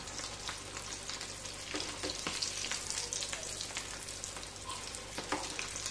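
Buckwheat-flour and Maggi pakoras deep-frying in hot oil, a steady crackling sizzle, with a few light knocks of a metal spoon against the pan as they are turned over.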